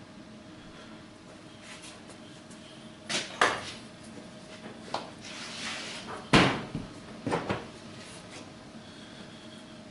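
The sheet-metal door of a powder-coating oven being handled and pushed shut. There are a few knocks about three seconds in, the loudest bang a little after six seconds, and then two smaller clunks.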